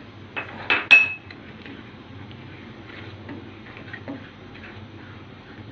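A spoon knocking and scraping against a metal saucepan while stirring custard. A few sharp clinks come about a second in, the loudest ringing briefly, followed by faint ticks and scrapes.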